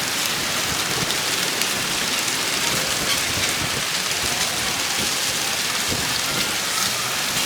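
Steady rushing noise of ocean surf breaking on coastal rocks.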